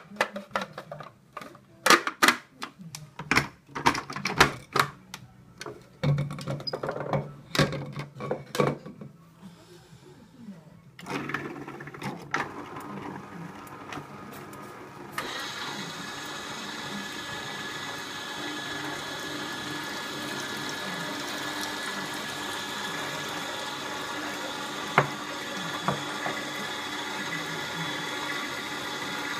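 Plastic parts of a vertical slow juicer click and knock as they are fitted together. About eleven seconds in, a juicer motor starts, and from about fifteen seconds a louder, steady motor hum with a whine runs on.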